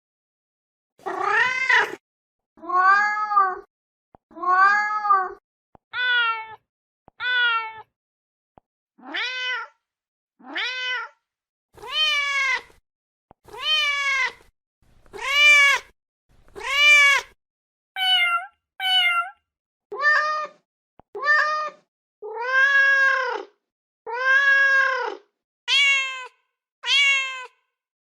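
Mother cat calling for her kittens: a long run of separate meows, about one every second and a half, each rising and then falling in pitch, a few of them short and clipped.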